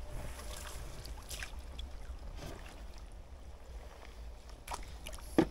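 Low, steady wind rumble on the microphone, with faint scattered rustles and one sharp knock near the end.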